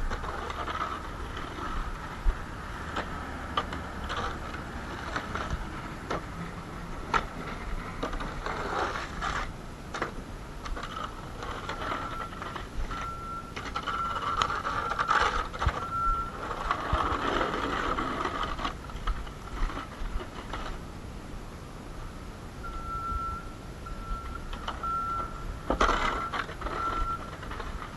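An electronic alarm beeping a steady tone about once a second in two runs, one midway and one near the end. Scraping, crunching and clicking noises run throughout.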